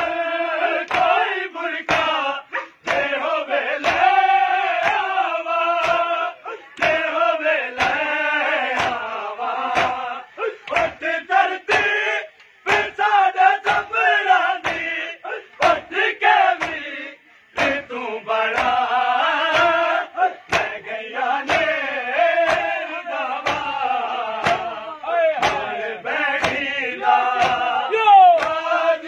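A crowd of men chanting a noha in unison while beating their chests in a steady rhythm (matam), each slap a sharp crack over the singing.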